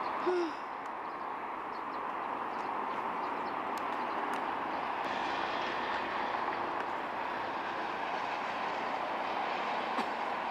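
Steady roar of distant road traffic, with one short chirp near the start.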